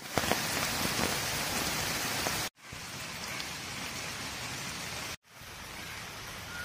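Steady hiss of rain falling on foliage, with a few sharper drop ticks in the first two seconds. The sound cuts out briefly twice, at about two and a half and five seconds in.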